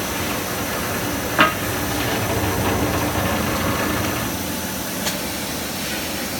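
Copper rod breakdown wire-drawing machine running steadily on test, with a single sharp clank about a second and a half in.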